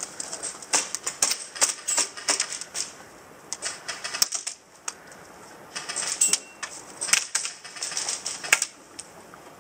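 Airsoft guns firing in rapid bursts, heard as clusters of quick sharp clicks and clatter with short pauses between them. The loudest bursts come in the second half.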